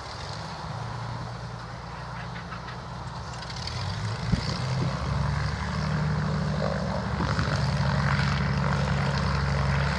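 Britten-Norman BN2 Islander's twin propeller engines running at idle before taxi, a steady low engine note that grows louder about halfway through.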